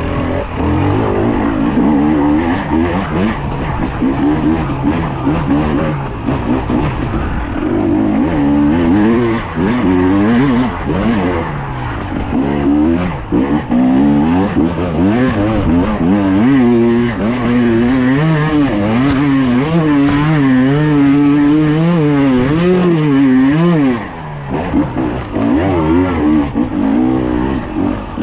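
Two-stroke enduro motorcycle engine, heard from on board the bike, revving up and down again and again as the throttle is worked over rough trail, with a few sharp knocks around the middle. The engine note drops away briefly near the end, then picks up again.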